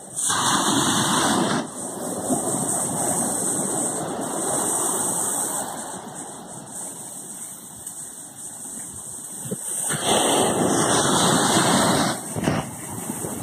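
Sea waves washing on the shore: a steady rushing surf noise that swells twice, briefly at the start and again for about two seconds some ten seconds in.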